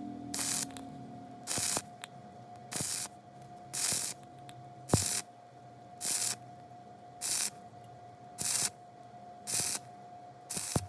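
Stick welding arc crackling in short, evenly spaced bursts, about one a second: the arc is struck and broken over and over in a stitch-style weld. A steady faint high tone runs underneath.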